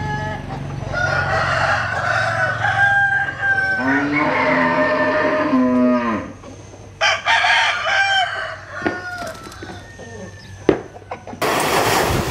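Bantam roosters crowing, several crows in a row, the loudest about four seconds in with a long held note that falls away at the end; shorter calls follow, then a few sharp clicks. A steady hiss starts suddenly near the end.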